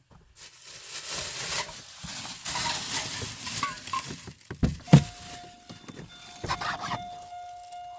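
Rustling and crunching, like footsteps in snow, then a single loud thump about five seconds in, after which a steady high tone hums on.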